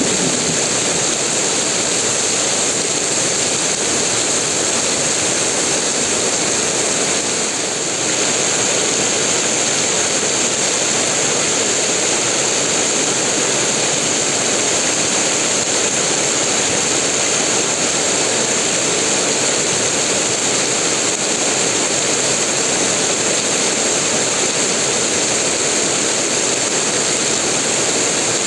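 Heavy rain pouring down in a dense, steady hiss, with no break or change.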